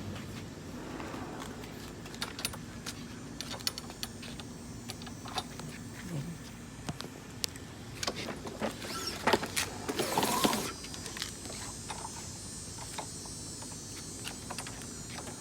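Scattered clicks, knocks and scraping from a new push mower being handled by hand, the loudest a noisy rustling scrape from about nine to ten and a half seconds in. The engine is not running. A faint steady high hiss runs under the last few seconds.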